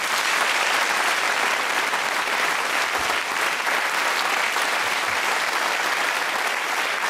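Theatre audience applauding steadily: many hands clapping together in a sustained, even wash.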